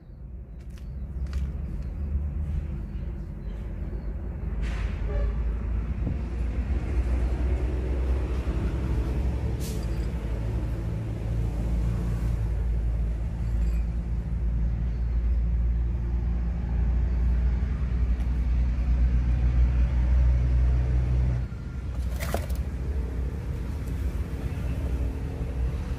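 A loud, steady low rumble with a few sharp clicks over it; the rumble drops a little late on.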